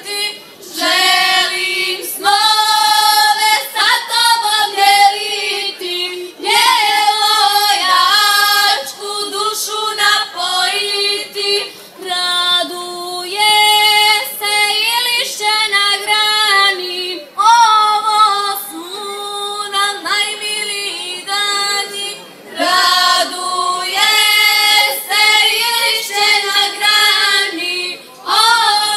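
A girls' vocal group singing a folk song together, the voices moving in long phrases with short breaks about every five to six seconds.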